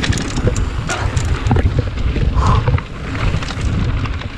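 A mountain bike descending a rocky dirt trail at speed: tyres rumbling over dirt and gravel, with frequent sharp clicks and rattles, under wind buffeting a chest-mounted camera's microphone.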